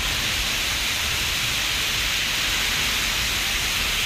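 Heavy rain pouring down onto a road, a steady, even hiss.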